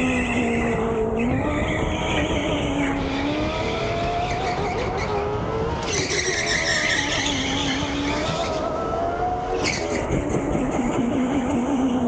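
Biz electric go-kart driven hard: the electric motor whines, its pitch rising and falling with speed, while the tyres squeal on the track surface in three stretches as the kart takes corners.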